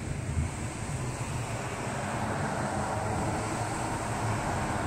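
Thunderstorm ambience: a steady low rumble under rushing wind, the noise swelling a little after the first second.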